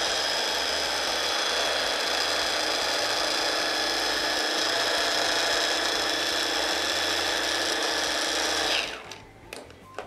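Hand blender motor running steadily on its mini chopper attachment, whizzing tofu, herbs and water into a creamy spread. About nine seconds in it winds down and stops, followed by a few light knocks as the motor unit is lifted off the bowl.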